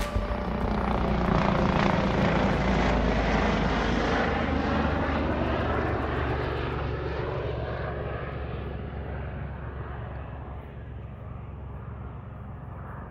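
Helicopter passing overhead. Its noise is loudest about two seconds in, then slowly fades and grows duller as it flies away.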